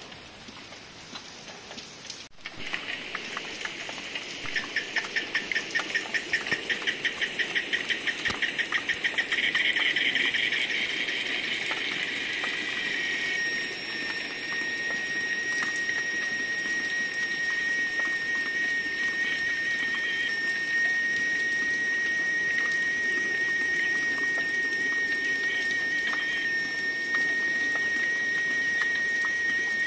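A high insect call over light rain: a pulsing buzz at about three or four pulses a second, which about halfway through settles into a continuous high, steady drone.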